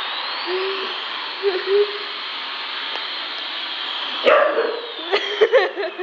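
Battery-powered toy jet plane's electronic jet-engine sound effect: a steady hiss with a whistle that slowly rises, then later slowly falls. A sudden burst of sharp knocks and clatter comes about four seconds in.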